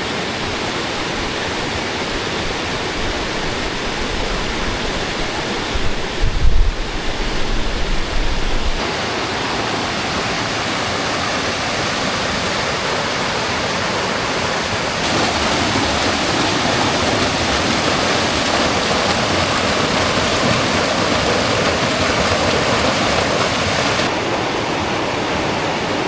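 Mountain creek cascade: water rushing steadily over the rocks. A few seconds of low rumbling come in about a quarter of the way through, the loudest moment, and the rush gets louder just past the middle before dropping back near the end.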